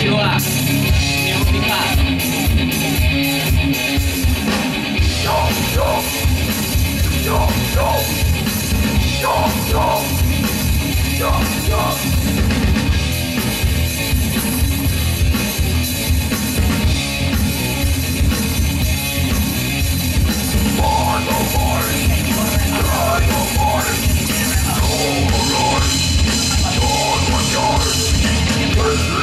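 Live metal band playing loud: distorted electric guitar, bass and a fast-hit drum kit, with vocals coming in at times.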